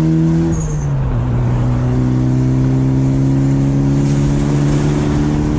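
Mitsubishi Lancer Evolution's turbocharged four-cylinder engine pulling the car along. Its pitch drops about a second in, then holds steady.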